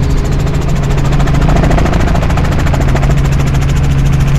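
Helicopter engine and rotor heard from inside the cabin: a loud, steady drone with a low hum and a rapid, even pulsing.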